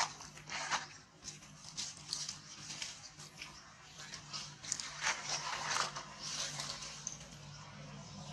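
Dry fallen leaves rustling and crackling in short irregular bursts as monkeys shuffle and scramble over them.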